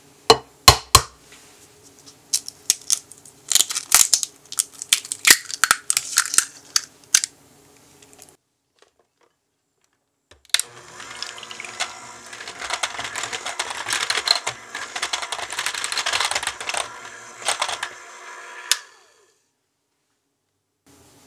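Sharp clicks and taps of utensils against a glass bowl for several seconds. After a short pause an electric hand mixer runs for about eight seconds, its wire beaters whirring through cream cheese batter to beat in an egg, then cuts off suddenly.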